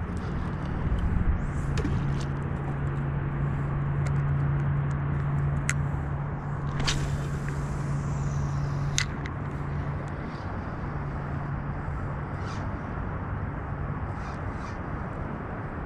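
Steady low machine hum that eases off after about ten seconds, over outdoor background noise, with a few sharp clicks as the spinning reel is handled.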